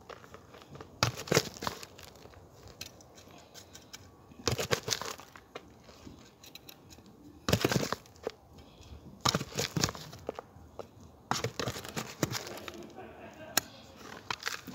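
Loose garden soil being scooped and dropped onto a bed with a trowel, a crumbly rustle repeated every two to three seconds, with a sharp click near the end.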